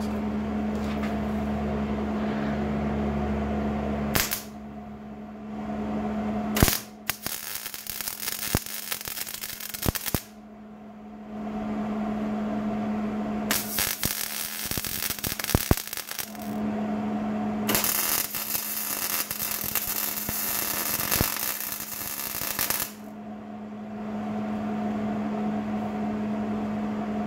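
MIG welder crackling in three bursts of several seconds each, after a couple of short blips, as new cab mounts are welded along their tops to a truck cab's floor. A steady hum sounds in the gaps between the welds.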